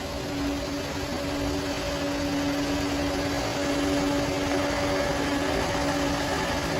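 Bulldozer's diesel engine running steadily under load, a low rumble with a steady droning hum, growing slightly louder as it goes.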